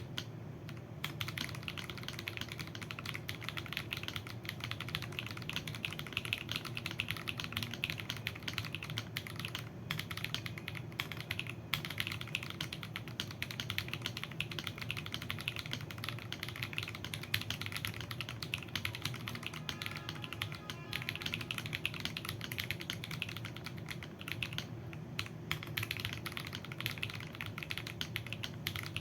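Fast, continuous typing on a mechanical keyboard with lubed Akko Purple Lavender switches, PBT keycaps and a foam-filled case: a dense stream of key clacks, with a few brief pauses.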